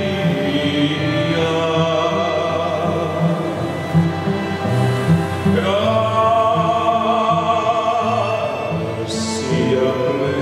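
Wedding processional music: a solo singer over a repeating low instrumental accompaniment, with a wavering high note that swoops in about halfway through and is held for a few seconds.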